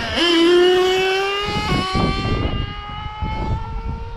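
Small nitro engine of a Kyosho Inferno GT2 1/8 RC car revving up and then held at full throttle, a high buzzing note whose pitch slowly climbs while it gets quieter as the car runs away down the lot. The engine is tuned a touch on the rich side, in the driver's estimate.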